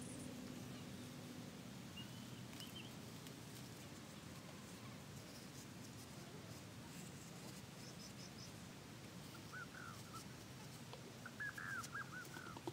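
Quiet woodland ambience with a few short bird chirps: one about two seconds in, then a quick run of chirps near the end.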